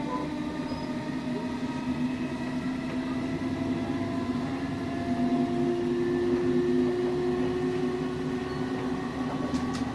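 Class 455 electric multiple unit heard from inside the carriage while running: a steady rumble with several whining tones from the motors and running gear, some edging slightly up in pitch, swelling a little louder around the middle.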